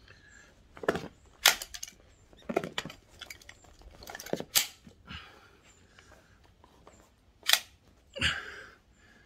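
Sharp clicks and clacks of an AP80 air rifle being handled, with its stiff, sticking bolt being worked, about eight in all, and a duller knock near the end.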